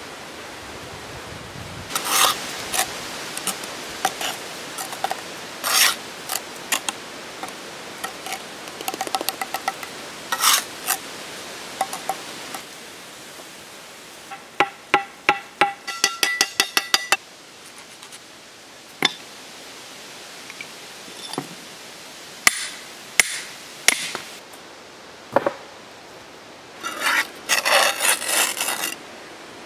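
Steel mason's trowel scraping wet mortar on concrete blocks, with gritty scrapes and clinks as the joints are struck and the blocks are set. About halfway through there is a fast run of ringing taps, and near the end a dense burst of scraping.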